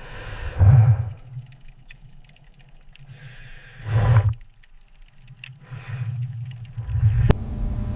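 Cinematic sound-design effects: three deep, low swells, each with a rush of hiss, about three seconds apart, with a sharp click near the end.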